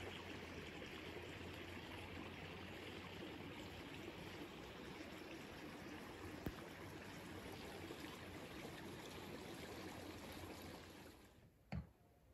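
Steady rushing of a flowing stream. It drops away near the end, followed by a single short knock.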